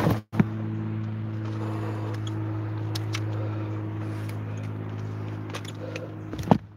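Vehicle engine idling steadily, under scattered clicks and rustles of straps, buckles and a bag being handled, with a louder knock near the end.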